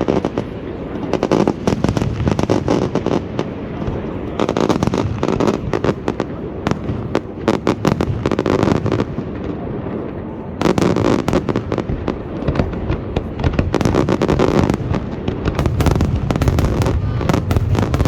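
Fireworks display in full swing: a dense, continuous barrage of bangs and crackling from aerial shells, easing for a moment about halfway through before a fresh heavy volley.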